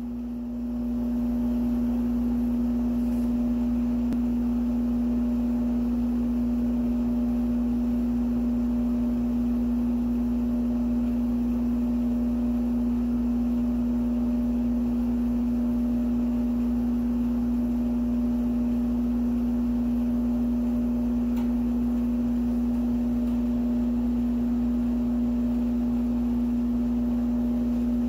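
A steady, unbroken hum at one low pitch, with fainter higher tones above it and a low rumble beneath, coming up about a second in and then holding unchanged.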